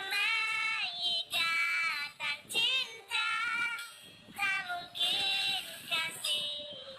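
A very high-pitched singing voice holding wavering notes in short phrases, with brief breaks between them.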